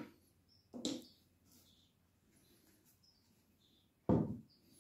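Centurion D5 Evo one-piece plastic gate-motor base being handled and turned over on a table: a few knocks and clatters of hard plastic, the loudest about four seconds in. Faint bird chirps are heard in the background.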